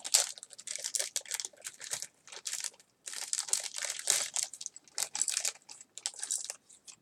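Toy packaging crinkling and rustling on and off as the accessories of a small vinyl action figure are unwrapped by hand.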